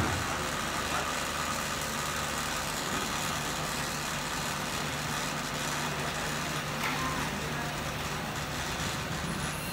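Steady hum and noise of factory machinery running, with a short thump at the very start.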